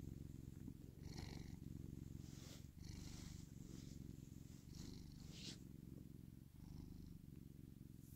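Domestic cat purring, a low, steady purr close to the microphone, with a few brief soft rustles.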